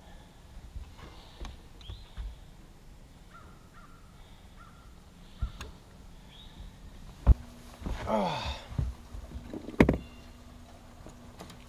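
Bass boat with a bow-mounted electric trolling motor: a sharp knock on the boat about seven seconds in, after which a steady low motor hum runs on, with a brief falling whine soon after and a second knock near the end. Faint bird calls come before it.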